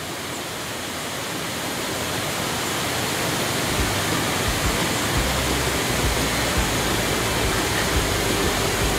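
Steady rushing noise that grows gradually louder, with irregular low rumbling from about four seconds in.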